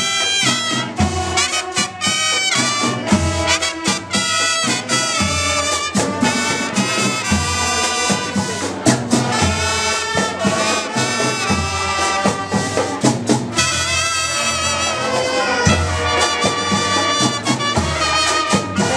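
School marching band playing live: a brass melody over a steady low beat about once a second.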